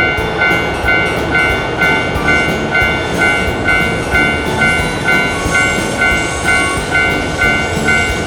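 Japanese level-crossing warning bell ringing steadily at about two strokes a second, over the rumble of a passing train.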